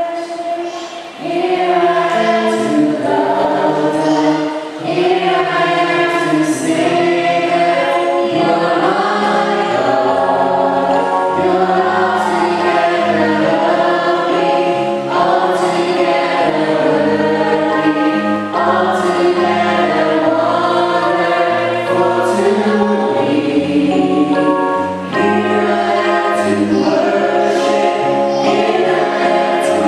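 A choir singing a hymn in several parts at once, with long held notes, coming in loudly about a second in.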